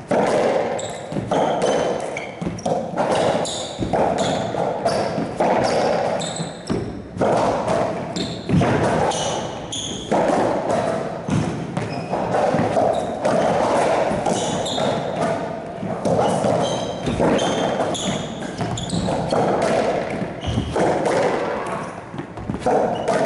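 A racquetball rally: the ball cracks off racquets and the court walls in sharp, repeated impacts, each echoing around the enclosed court.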